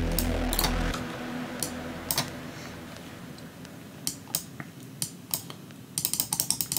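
A deep, dark synth pad built in Serum plays for about a second and then stops. Sharp computer mouse and keyboard clicks follow, scattered at first and then a quick run of keystrokes near the end.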